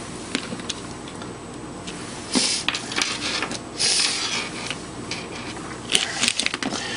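Hands handling a perforated LED board and alligator-clip leads on a tabletop circuit: scattered small clicks and brief scraping and rustling, with a quick run of clicks about six seconds in.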